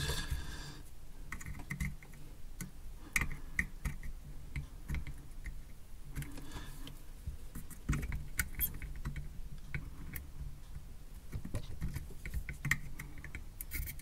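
Small irregular clicks and taps of pliers and a soldering iron tip on a circuit board, pulling leftover wire legs out of the solder holes of a removed mini USB port, over a faint low hum.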